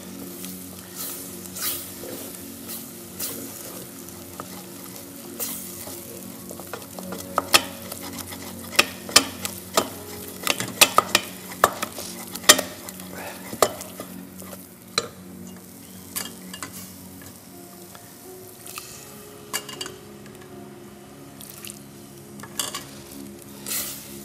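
Wooden spoon stirring a béchamel (white sauce of roux and milk) in a stainless steel pot, scraping the bottom and knocking against the pot's sides, with a run of sharp clacks in the middle. Steady low tones run underneath.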